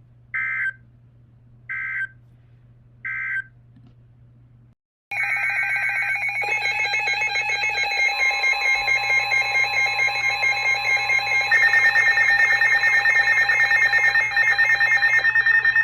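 Emergency Alert System tones: three short bursts of digital data tones, the end-of-message signal, then after a moment of silence a loud, continuous, pulsing alert alarm of several pitches that shifts in pitch and grows louder partway through.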